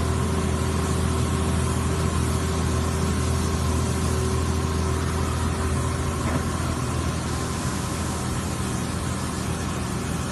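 Excavator's diesel engine running steadily, driving a hydraulic auger drive that is boring into soil. A steady low hum, with a mid-pitched tone that fades out and a slight easing in level about six seconds in.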